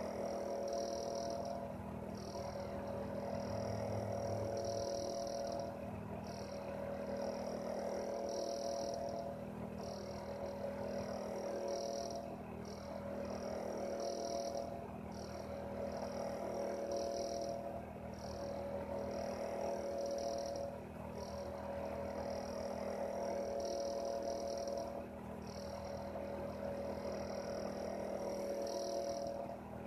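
Heater running steadily: an even hum, with a high pulsing chirp that repeats about every two seconds.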